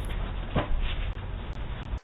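Steady rough noise with a strong low rumble and one sharp click about half a second in, heard through a doorbell or security camera's dull, narrow-range microphone.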